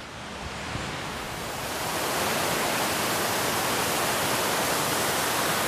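Huibang Falls, a waterfall about 28 m high running with a great deal of water after heavy rain, pouring steadily. The rush of water grows louder over the first two seconds, then holds.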